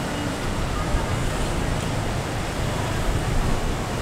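Busy outdoor ambience: a steady, dense rush of noise with a low rumble and indistinct voices in it.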